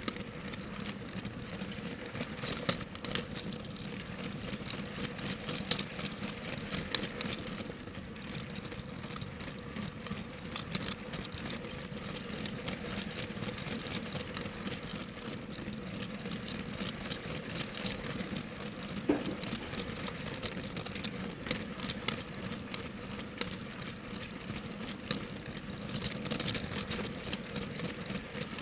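Motorised LEGO train running on plastic track: a fast, steady rattle of wheels and couplings clicking over the rails, over a steady electric motor hum.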